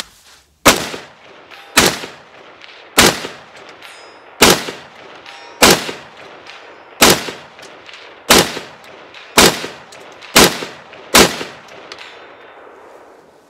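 About ten shots from an AR-15 short-barrelled rifle with a PSA 7-inch 5.56 barrel and a Hancock Armory muzzle brake, fired at a steady pace of roughly one a second and slightly quicker near the end. Each shot is a super loud, sharp report with a short ring-off after it.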